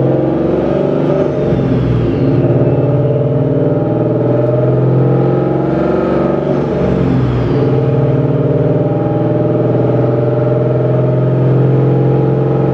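Paxton-supercharged Ford Mustang GT's Coyote 5.0 V8, heard from inside the cabin while driving at low revs under 3,000 rpm. The engine note holds steady, dipping and picking back up around a second and a half in and again around six to seven seconds in as the revs change.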